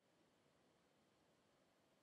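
Near silence: only a faint recording hiss.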